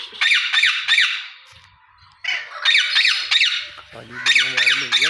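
Parrots squawking: rapid runs of harsh, shrill calls, several a second, with a short lull about one and a half seconds in before they start again.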